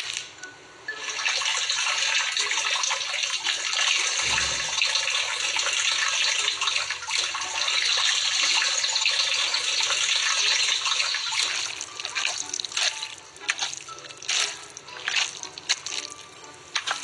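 Water sounds: a steady rush like running or pouring water for about ten seconds, then breaking up into scattered drips and splashes.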